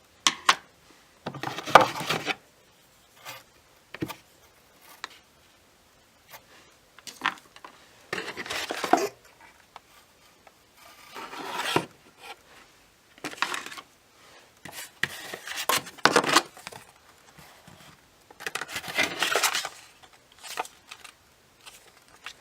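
Products and packaging being handled: bursts of rustling and scraping about a second long, every few seconds, with clicks and light knocks between them.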